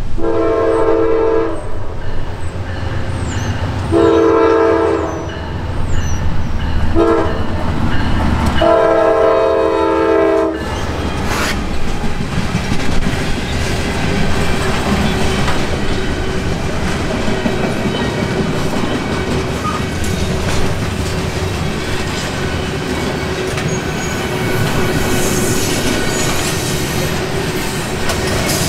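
Norfolk Southern GE AC44C6M locomotive's air horn sounding the grade-crossing signal: long, long, short, long. The train then passes close by, its freight cars rolling with a steady loud clatter of wheels on the rails.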